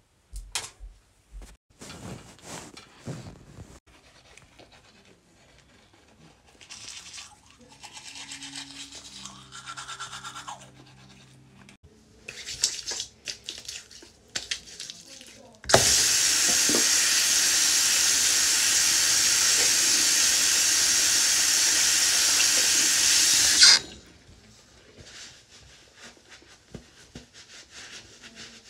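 Bathroom sink tap running for about eight seconds in the middle, a loud steady splashing hiss that starts and stops suddenly. Softer rubbing and handling sounds of hands and a towel come before and after it.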